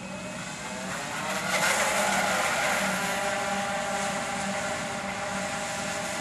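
Electric motors and propellers of a large radio-controlled scale model of the Hughes H-4 Hercules flying boat throttling up for takeoff: a whine that rises in pitch and grows louder over the first two seconds, with a rush of water spray as the hull runs across the water, then holds steady at full power.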